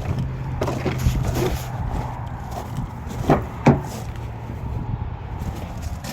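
Rustling and handling noises with two sharp knocks a little past the middle, about half a second apart, over a steady low hum.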